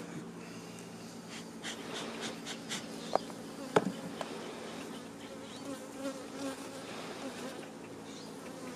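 Honeybees buzzing as a steady hum over an opened hive full of comb, with two sharp clicks about three and four seconds in.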